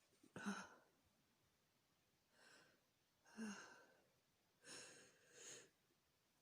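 A person's short, soft breaths and small gasps, about five of them with quiet pauses between, two with a slight voiced catch. They are the build-up to a sneeze brought on by chhikni, a sneeze-inducing herbal snuff.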